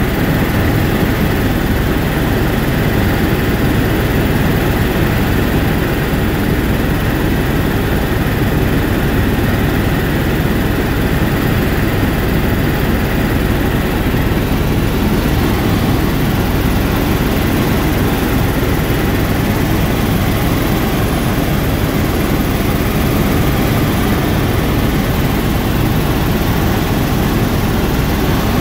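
Tour helicopter in cruising flight heard from inside the cabin: a loud, steady drone of rotor and turbine engine, with a faint steady whine above it.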